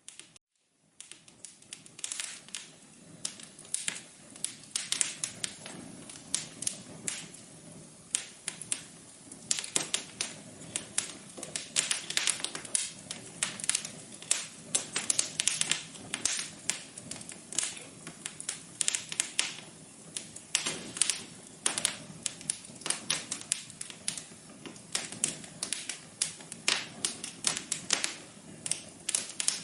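Wood fire crackling in a fireplace: dense, irregular sharp pops and snaps over a soft steady hiss, picking up after a second of quiet.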